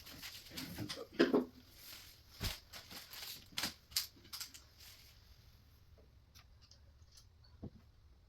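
Light knocks, clicks and rustling from handling flat-pack cabinet parts and hardware. A handful of sharp taps come in the first five seconds, then only a few faint ticks.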